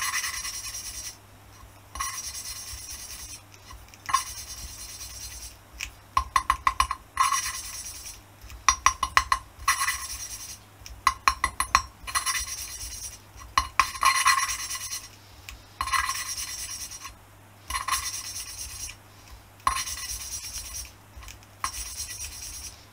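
A valve being lapped into its seat in a 1978 Honda XL250S cylinder head: the lapping stick is spun back and forth between the palms, grinding the valve face against its seat with a gritty rasping scrape. It comes in bursts of quick back-and-forth strokes, pausing and starting again every second or two.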